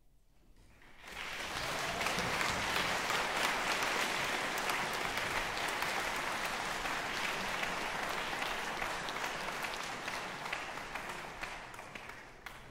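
Audience applauding after a piece ends. The clapping swells up about a second in, holds steady, and tails off near the end.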